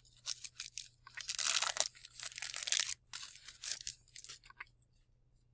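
A 1990 Score hockey card pack's wrapper being torn open and crinkled by hand, in a run of short crackling bursts that stop after about four and a half seconds.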